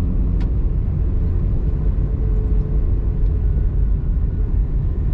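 Car driving along a street, heard from inside the cabin: a steady low rumble of engine and tyres, with a faint steady hum through the middle few seconds and a small click shortly after the start.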